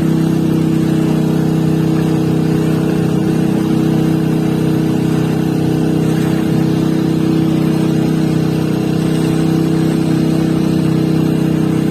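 A motor running steadily at a constant pitch, with no change in speed.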